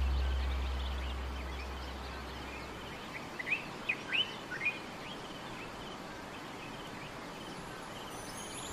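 A low musical drone fades out over the first few seconds, leaving a steady outdoor ambience. About three to five seconds in, a handful of short bird chirps sound.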